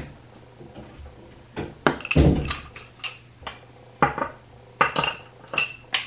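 Makeup items being handled and set down on a hard surface: a dozen or so sharp clicks and clinks, some ringing briefly like glass, with a duller knock about two seconds in.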